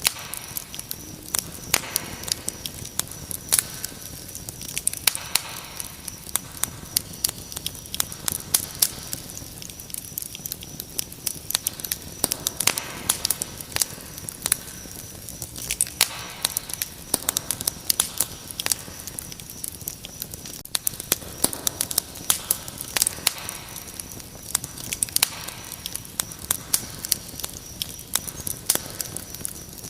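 Wood fire crackling with frequent irregular sharp pops, over a steady high trill of crickets.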